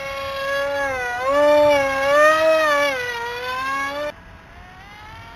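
RCPowers MiG-29 model jet's electric motor and propeller whining in a low pass, the pitch dipping and rising a few times with the throttle. About four seconds in it turns abruptly quieter and thinner.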